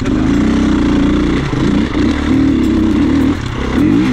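Enduro dirt bike engine running under throttle. Its note holds steady at first, then drops and climbs again several times as the throttle is closed and reopened.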